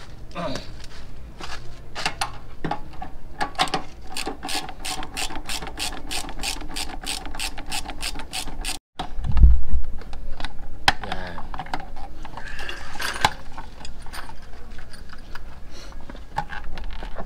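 Socket ratchet wrench clicking in a fast, even run of about four to five clicks a second as a bolt is turned down on a motorcycle's fuel tank. A loud thump comes about nine and a half seconds in, followed by scattered clicks.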